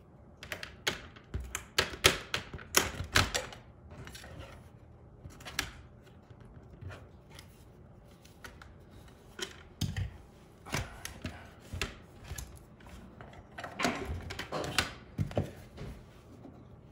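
Irregular clicks, knocks and clatters of hard plastic as a worn pet-door flap and its frame are worked loose with a screwdriver and handled. They come in three bunches: near the start, about ten seconds in, and near the end.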